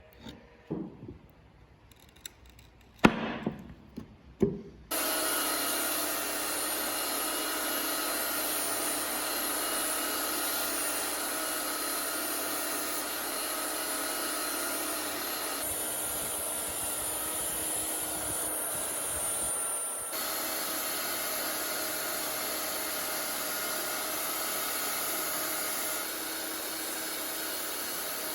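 A few knocks of handling, then an electric power tool switches on about five seconds in and runs steadily with a constant whine, its tone shifting slightly for a few seconds in the middle.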